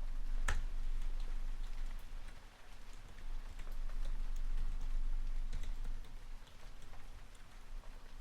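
Computer keyboard typing: irregular keystroke clicks, one sharper stroke about half a second in, over a steady patter of rain.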